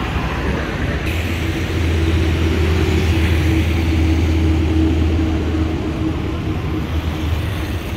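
Road traffic passing on a busy main road: car and motorcycle engines and tyre noise. A steady low engine drone runs through the middle and fades near the end.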